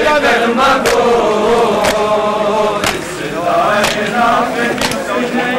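Group of men chanting together, with a sharp strike about once a second keeping time.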